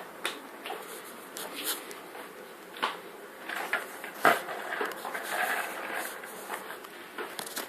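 Bosch SMS69M58EU dishwasher washing on its Turbospeed program: a steady rush of sprayed water inside the tub, with irregular knocks and a swell of splashing partway through.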